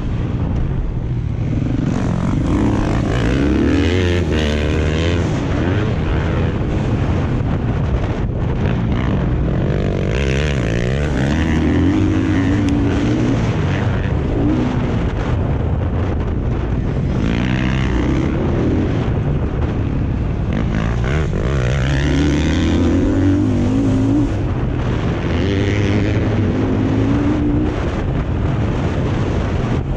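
Dirt bike engine revving hard and backing off again and again as it is ridden, its pitch climbing and dropping every few seconds.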